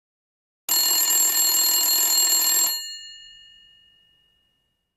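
An electric alarm bell rings loudly for about two seconds, signalling that the countdown has run out, then stops and its tones ring away.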